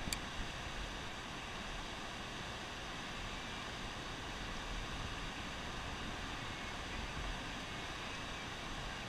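Steady rush of turbulent water spilling below a dam.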